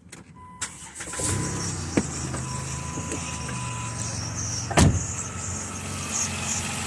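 2010 Chrysler Town & Country's 3.8 L V6 starting about a second in and idling steadily, with on-and-off high-pitched noise from the serpentine belt drive, which the owner suspects comes from a worn power steering pump. A steady chime-like tone sounds over the start, and a single loud knock comes near the end.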